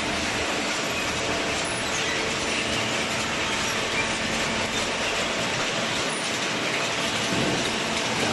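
Cardboard baler line running: the inclined chain-driven slat conveyor carries loose cardboard up into the baler with a steady mechanical clatter and rattle, over a faint machine hum.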